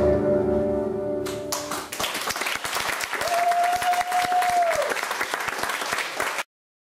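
Performance music ends on a held chord, then an audience applauds, with one long whistle held for about a second and a half in the middle of the clapping. The sound cuts off suddenly near the end.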